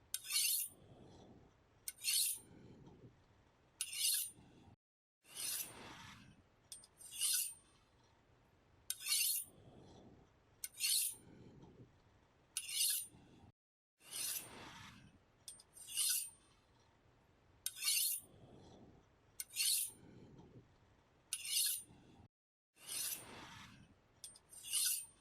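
A steel knife blade being sharpened, drawn in short, sharp, high scraping strokes about every one and a half to two seconds, with softer, lower scraping between the strokes.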